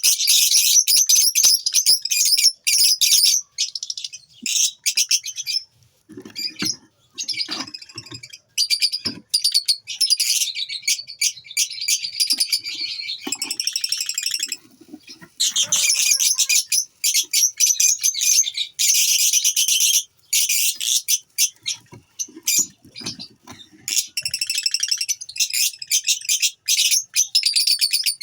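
A colony of lovebirds chattering, with constant rapid, shrill chirps overlapping one another and short breaks between bursts. A few duller, lower sounds come in twice along the way.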